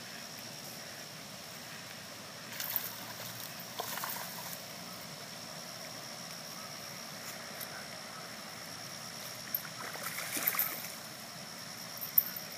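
A hooked bass splashing at the surface of a pond as it is reeled in: a couple of short splashes about a third of the way in, then a longer stretch of splashing near the end as it is brought to the bank and swung out of the water. Under it runs a steady outdoor hiss with a faint high steady tone.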